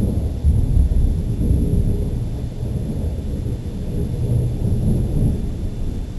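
Thunder rolling: a low rumble that slowly dies away.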